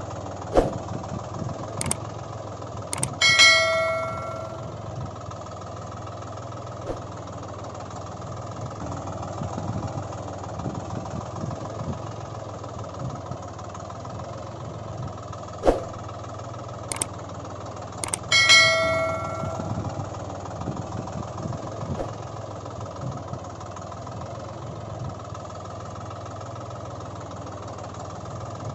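A steady engine drone with scattered sharp clicks, broken twice, about fifteen seconds apart, by a short ringing bell-like tone that fades within about a second.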